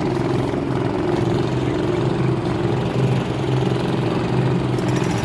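An engine running steadily at constant speed, with a higher hiss joining near the end.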